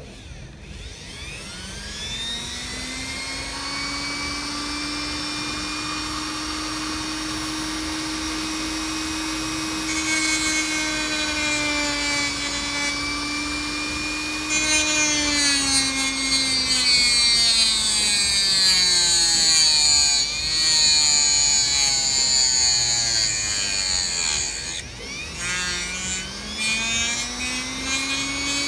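Mastercraft rotary tool with a cutoff wheel spinning up to a steady whine, then grinding into a plastic model locomotive tender shell. The motor's pitch sags each time the disc bites into the plastic, most deeply near the end, and climbs back as the load eases.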